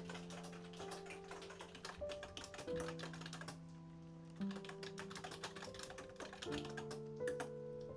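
Soft background music of held chords that change every second or two, over a steady, irregular patter of many light clicks like typing on a keyboard.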